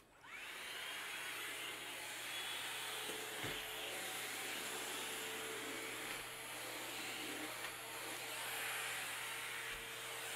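Shark VacMop's motor switched on, winding up with a rising whine in the first half second, then running steadily with an even rushing noise and a steady hum.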